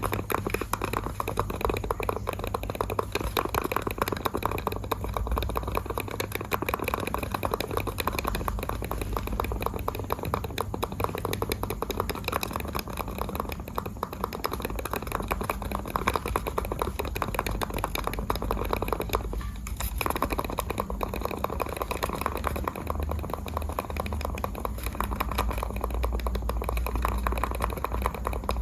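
Computer mouse buttons clicked rapidly and continuously, with a brief break about two-thirds of the way in.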